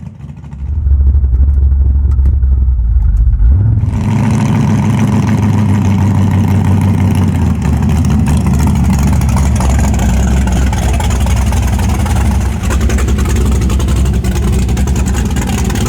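1974 Chevy Nova's engine under hard acceleration. It comes in loud and low about a second in, and the engine and road noise jump sharply about four seconds in and stay loud.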